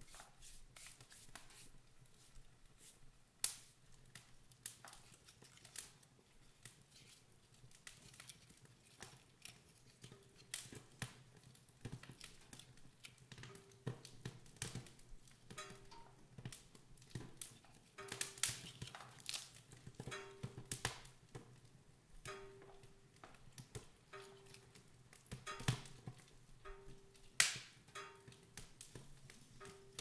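Wood fire crackling and popping in the open firebox of a wood stove, with irregular sharp pops, the loudest near the end. From about a third of the way in, a faint short tone repeats roughly once a second.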